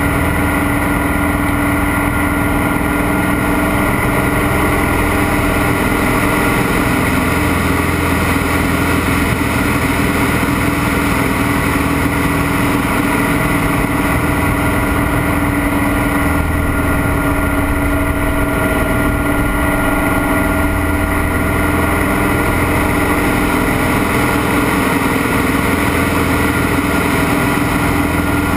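Scottish Aviation Bulldog's four-cylinder Lycoming piston engine and propeller running steadily, heard from inside the cockpit through an aerobatic manoeuvre, its tone shifting slightly a few times.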